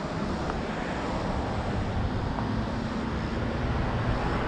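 Steady outdoor rushing noise: wind on the microphone mixed with a low hum of traffic.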